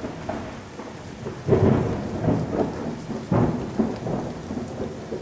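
Thunderstorm: steady rain with thunder rumbling, swelling loudest about a second and a half in and again at about three and a half seconds.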